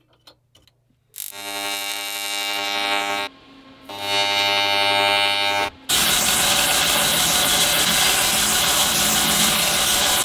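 A few faint metal clicks, then a belt grinder running with a steady pitched whine that cuts out briefly twice. About six seconds in, steel is pressed against the abrasive belt: a loud, harsh grinding noise that holds steady.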